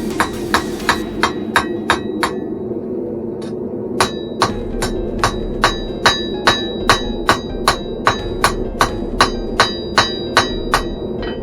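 Hand hammer striking hot steel on an anvil at about three blows a second, with a pause of a second or two early on. After the pause the blows ring with a high metallic tone. The steady roar of the forge runs underneath.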